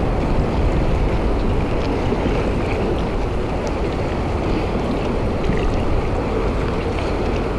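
Wind buffeting the microphone outdoors: a steady low rumble with a few faint ticks scattered through it.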